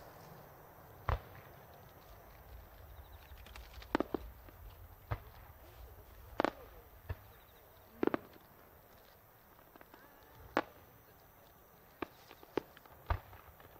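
About a dozen sharp cracks and knocks at irregular intervals over a faint background hush. The ones about six and eight seconds in are the loudest and ring on briefly.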